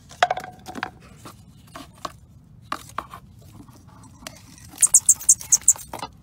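Metal tool knocking and scraping against the inside of a plastic bin, several short hits in the first three seconds. About five seconds in comes a quick run of about seven high, sharp squeaks.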